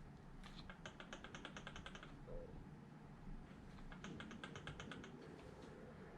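Faint rapid clicking of spur and pinion gear teeth as the pinion is turned and rocked against the spur to check the gear mesh, in two short runs of about ten clicks a second.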